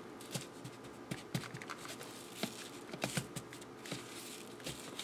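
Soft, irregular taps and rustles of a raw rib eye steak being pressed and turned in dry seasoning on a paper plate, over a faint steady hum.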